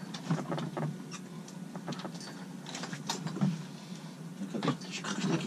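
Irregular clicks and rustling of fishing tackle and line being handled on a boat deck, over a faint steady low hum.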